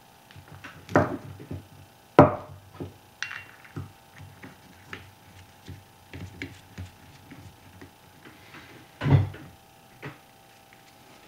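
Tools and small metal paintball-gun parts being handled and set down on a cloth-covered table: scattered clicks and knocks, the sharpest about two seconds in and a heavier knock near the end.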